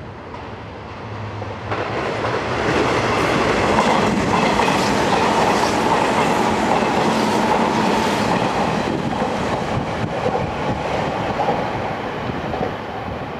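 Hanshin 8000 series electric train passing, its wheels clattering over the rail joints, with a steady hum from the running gear. It builds up about two seconds in and eases off near the end.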